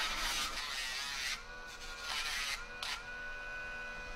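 Dremel rotary tool running with a steady high whine, grinding down a dog's toenails: a long gritty grind at the start and a brief one about three seconds in.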